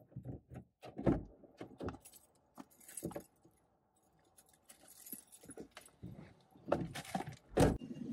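A person climbing into a car's driver's seat: keys jangling, clothes rustling and a string of short knocks and bumps, with a heavier thump about a second in and two more near the end.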